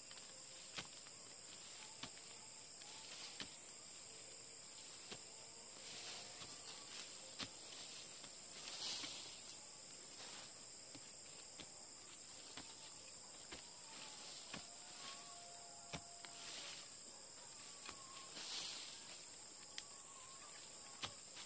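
Steady high-pitched insect drone, with scattered faint clicks and a few brief swells of hissing noise.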